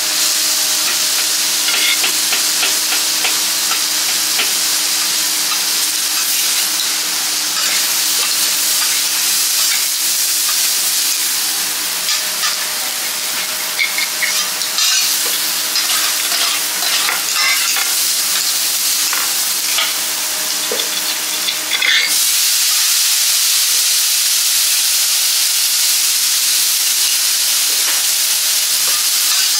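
Foie gras and vegetables sizzling on a steel teppanyaki griddle, with scattered clinks and scrapes of a metal spatula and fork on the hot plate. About two-thirds of the way through the clinks stop and only an even sizzle remains.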